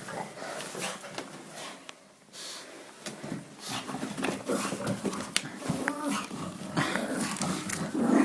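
Dog growling and grumbling in short bouts, louder in the second half. The dog is annoyed and ready to snap.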